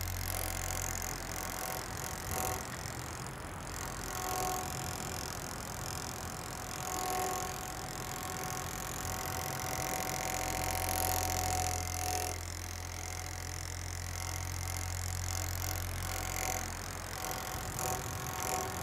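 Steady background noise with a low hum.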